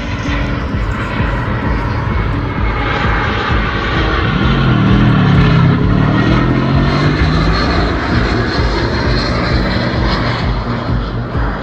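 Airliner on landing approach passing close overhead. Its engines make a loud, steady rushing roar, loudest about five seconds in, where the engine tone slides upward in pitch as it goes by.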